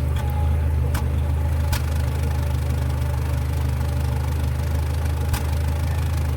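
Nissan Platina's four-cylinder engine idling, with a few sharp pops breaking through, about three in all. This is typical of a misfire, which the mechanic puts down to a failing ignition coil or spark plug.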